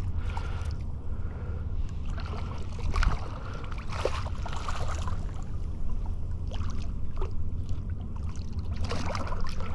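Water splashing and sloshing in shallow water, with wind rumbling steadily on the microphone and scattered short splashes, the clearest about three and four seconds in and again near the end.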